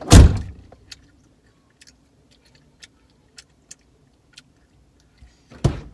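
Two car doors shut, the first right at the start and the loudest, the second about five and a half seconds later, heard from inside the car. A few faint ticks come in between.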